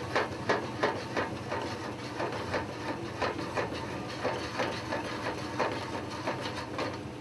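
Sauté pan of halibut in boiling cream sauce being worked back and forth on a gas burner's cast-iron grate: irregular metal scrapes and knocks, several a second.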